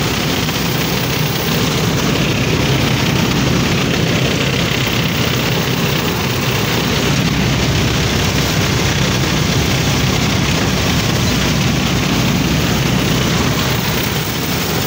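Bagging combine harvester running steadily under load while cutting wheat: its engine and threshing machinery make a loud, even din with no letup.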